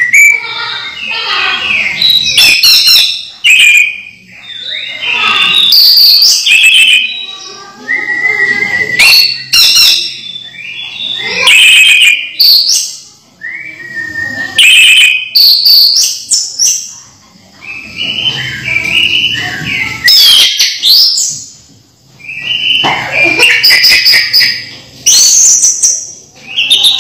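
Orange-headed thrush singing: loud, varied phrases of high whistles and chattering notes, each a second or two long, repeated with short pauses between them and some sharp ticking notes among them.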